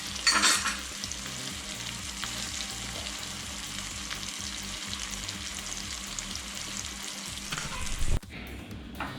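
Onions frying in a pan, a steady sizzle, with a brief loud stir about half a second in. The sizzle cuts off suddenly near the end.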